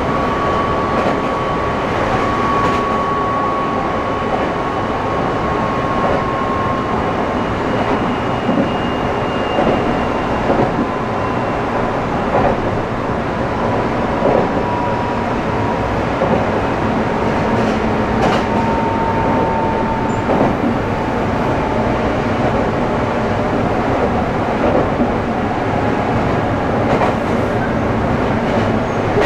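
Meitetsu 200 series electric train (Mitsubishi GTO-VVVF) heard from inside a passenger car while running at speed. Steady running noise with faint rail-joint clicks and a thin whine that slowly falls in pitch.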